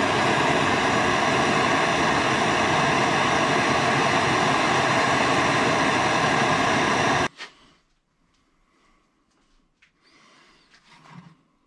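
Hand-held gas torch burning with a loud, steady hiss as it heats a steel horseshoe clamped in a vise, ready for bending. The flame shuts off suddenly about seven seconds in, followed by a few faint knocks as the heated horseshoe is bent by hand.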